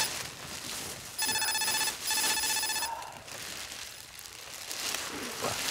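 Electronic alarm ringing like a telephone bell, a fast trilling ring in short bursts: one ring ends right at the start, then two more come about a second in and stop about three seconds in. It is a wake-up alarm, with the campers roused before they have slept.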